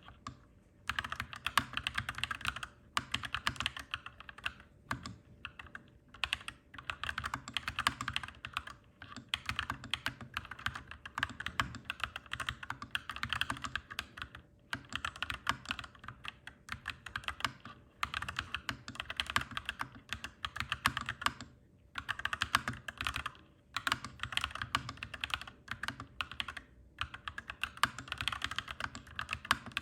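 Clacky mechanical keyboard being typed on in quick runs of keystrokes, broken by short pauses every few seconds.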